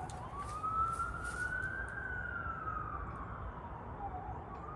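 Emergency-vehicle siren in a slow wail: one long rise and fall in pitch, starting to rise again near the end.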